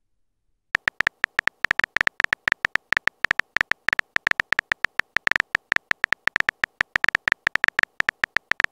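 Rapid, uneven run of short, crisp keyboard tap clicks from a texting app as a message is typed letter by letter, several taps a second, starting just under a second in.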